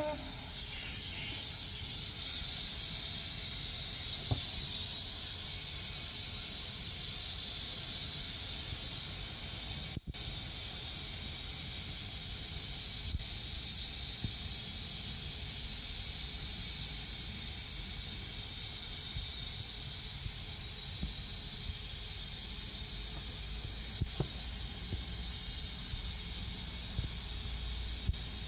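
Steady high hiss of outdoor background noise, with a few faint ticks and a brief dropout about ten seconds in.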